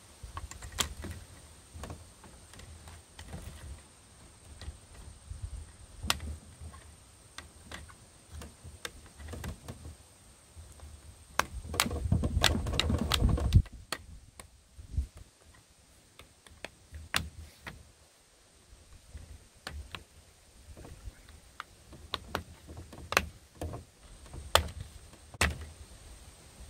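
Dell Inspiron 15 7567 plastic screen bezel being handled and pressed onto the laptop lid, making scattered sharp clicks and snaps as its clips seat. About halfway through there is a louder stretch of low rumbling noise lasting a couple of seconds.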